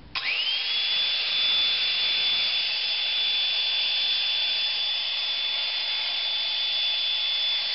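Electric air pump motor taken out of an inflatable air mattress and run bare, switching on about a tenth of a second in with a quick rising whine that settles into a steady high-pitched whine over the rush of air it blows.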